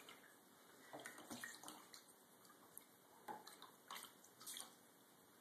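Faint, brief splashes of shallow bathtub water as a cat's paw dabs at a goldfish, a handful of separate dabs spread through the moment.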